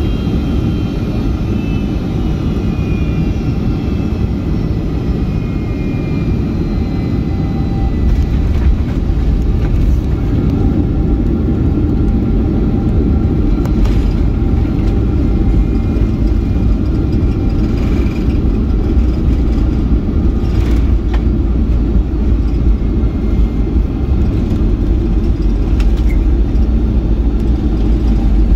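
Boeing 757 heard from inside the cabin over the wing, touching down and rolling out on the runway: a loud, steady rumble of engines and rushing air. A high whine slowly falls in pitch in the first several seconds. The rumble grows louder about eight seconds in as the jet slows on the runway, with a few faint knocks.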